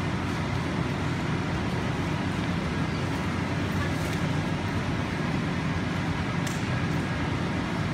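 Steady low rumbling background noise with no clear voices.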